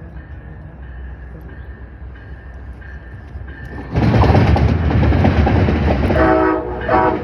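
Amtrak passenger train led by a Siemens ALC-42 Charger locomotive, first a low approaching rumble, then about four seconds in a loud rush of the train passing close at speed. Near the end its multi-note air horn sounds in a string of short blasts: a horn show.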